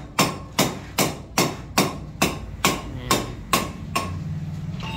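A hammer striking repeatedly at an even pace, about two to three blows a second, each with a short metallic ring. The blows stop about four seconds in.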